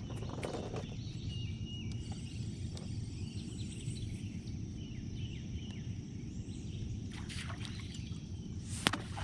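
Steady outdoor background noise, mostly a low rumble, with a few faint high chirps and a single sharp click near the end.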